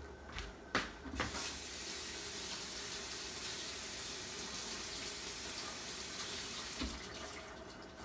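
Kitchen sink tap running steadily as bok choy is rinsed under it, after a couple of knocks about a second in. Another knock comes near the end and the water quiets.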